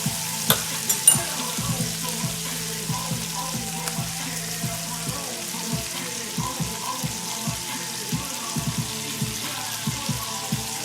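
Chicken breasts frying in a pan with a steady sizzle as the Hennessy glaze cooks down, with background music underneath. A few sharp clicks about a second in.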